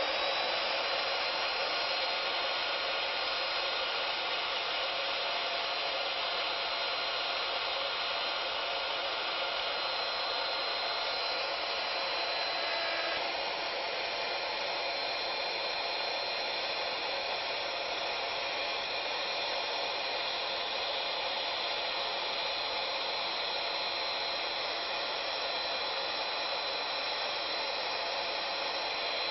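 Wood router running at full speed with a steady high whine while routing mortises in wood boards. The pitch and level dip slightly about 13 seconds in.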